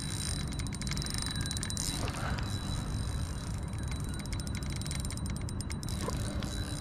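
Shimano Sedona FE 3000 spinning reel ticking rapidly in two spells, about a second and then nearly two seconds long, while a hooked mulloway pulls on the bent rod. A steady low rumble runs underneath.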